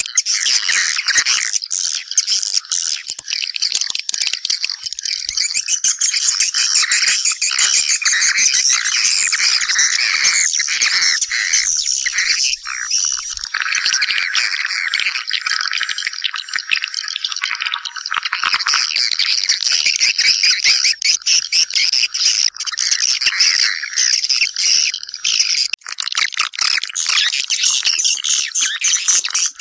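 Swiftlets calling: a continuous dense chorus of rapid chirping and chattering twitters, the kind of swiftlet call used to draw the birds to a nest site.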